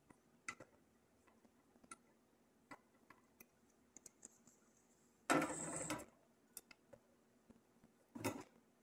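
Faint, scattered light clicks and taps of soldering work on a circuit board, with a louder rushing noise lasting under a second about five seconds in and a shorter one near the end.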